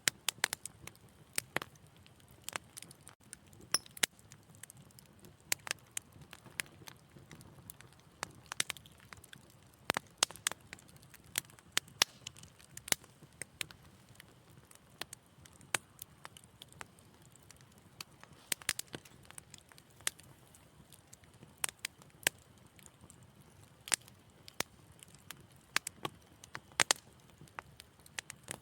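Wood fire crackling in a fireplace: irregular sharp pops and snaps, some in quick clusters, over a faint low rumble of the flames.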